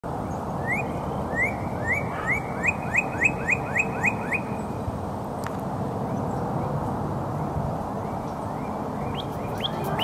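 Northern cardinal singing: a run of rising whistled notes that come faster and faster, about a dozen in under four seconds. A second run begins near the end, over steady outdoor background noise.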